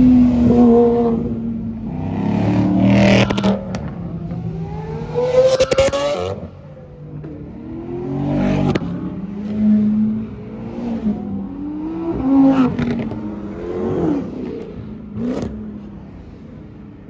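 Several sports cars, including a Porsche 911 and a C8 Corvette, accelerate hard past one after another, their engines revving up and then fading as each goes by. A few sharp pops are heard over the engines.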